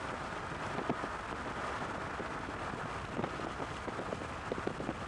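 Steady rushing noise of wind and a moving vehicle, with scattered faint ticks and taps through it.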